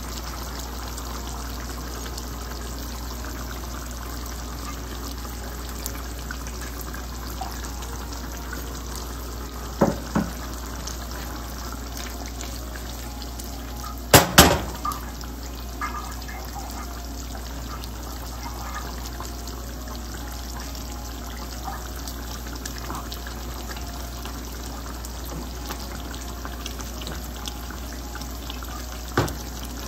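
Fish curry simmering and bubbling in a pan over a steady hiss, with a few sharp knocks of a spatula against the pan, the loudest a double knock about halfway through.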